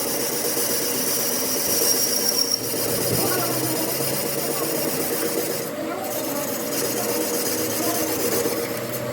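A power tool running steadily while working metal, its rough cutting or scraping noise breaking off briefly about six seconds in.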